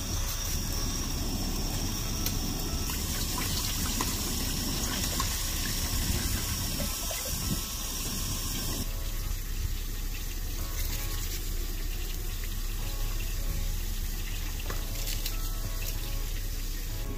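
Water poured from a plastic bottle into a stainless steel pot, splashing as the pot fills.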